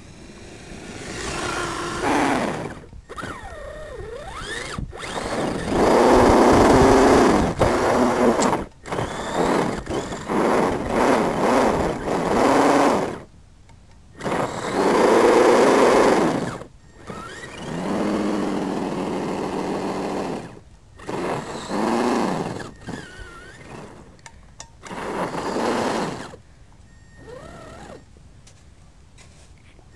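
Axial SCX10 RC crawler's electric motor and gear drivetrain whining in repeated bursts of throttle, the pitch rising and falling, as its wheels churn through deep snow. There are about seven bursts of one to three seconds each, with short pauses between them.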